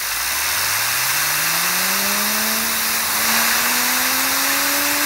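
Compressed air hissing from an air hose onto a fidget spinner, with the spinner's bearing whirring and rising steadily in pitch as it spins up, levelling off near the end.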